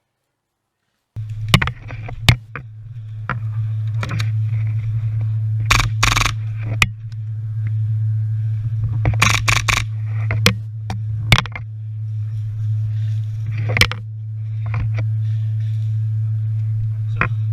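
A steady low hum starts abruptly about a second in, with scattered sharp clicks and a few brief rustling bursts over it.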